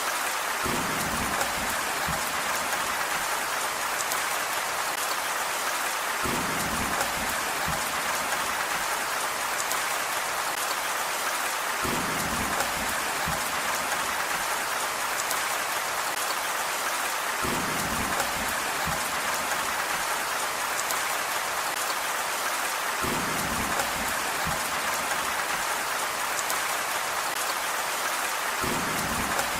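Steady rain falling, an even hiss of many drops at a constant level. Beneath it a short low rumble comes back about every five and a half seconds.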